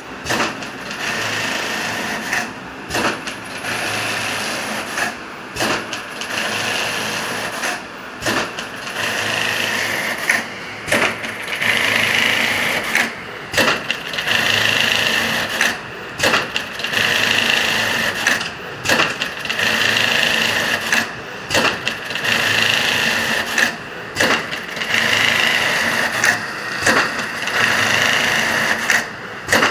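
Computerized mattress side-panel pattern sewing machine running, its needle stitching steadily. The run breaks for a brief pause, with a click, about every two and a half seconds.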